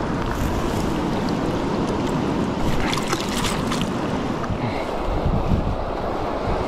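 Steady rush of fast-flowing river water with wind buffeting the microphone.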